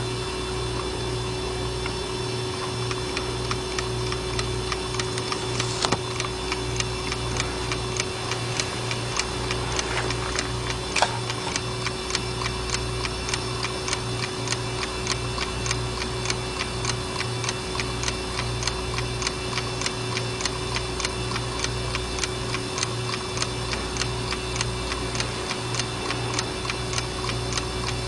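Westclox wind-up alarm clock's movement ticking in a rapid, even rhythm over a steady hum. Two louder clicks come about six and eleven seconds in.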